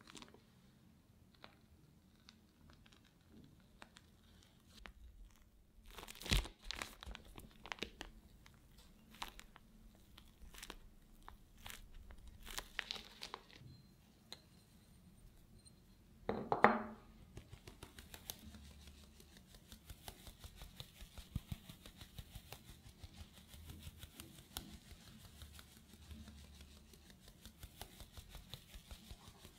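Crinkling and crackling as the plastic piping bag is handled, then a single ringing clink of a small glass against a metal strainer. After that comes rapid, light, even tapping of a fine-mesh strainer as powdered sugar is dusted over the batter.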